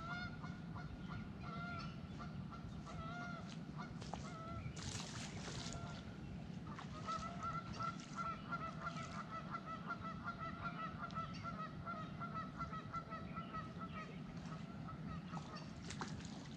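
A flock of geese honking, many short overlapping calls, thickest in the second half. A brief rush of noise about five seconds in.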